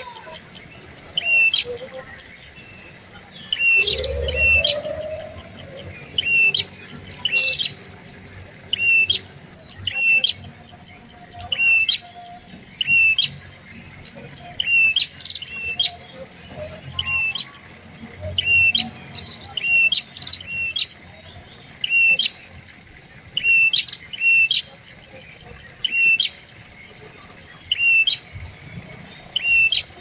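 Caged tailorbird calling a short, sharp note over and over at an even pace, about one call every second and a bit.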